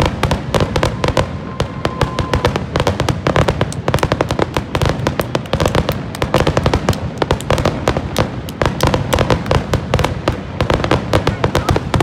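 Aerial fireworks display: a dense, continuous barrage of bangs and crackling shells, many reports a second with no pause.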